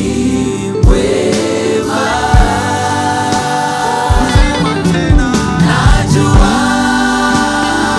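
Live gospel worship music: a choir singing with a band, with low drum beats under the voices.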